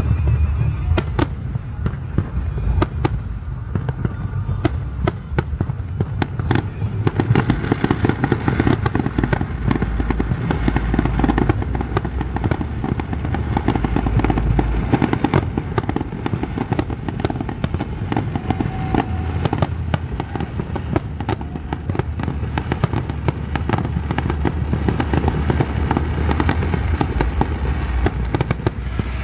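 Aerial fireworks display: a dense, continuous barrage of sharp cracks and crackling over a steady low rumble of bursting shells.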